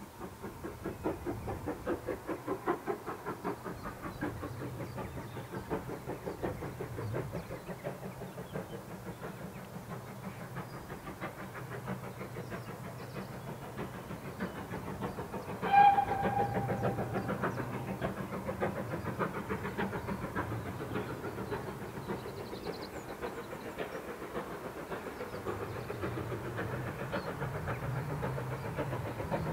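GWR Small Prairie 2-6-2 tank locomotive No. 4555 working a train, its exhaust beating quickly and evenly. About halfway through it gives one short blast on its steam whistle.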